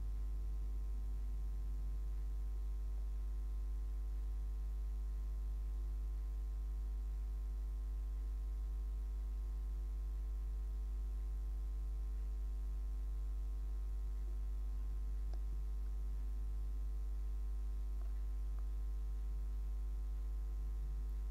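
Steady low electrical mains hum with a row of fainter, higher steady hum tones above it, unchanging throughout.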